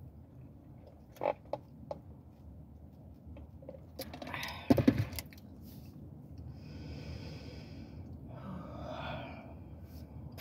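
A person sipping a drink through a straw from a plastic cup, with light clicks of cup and straw early on and a louder clatter of handling about halfway through, followed by soft breaths.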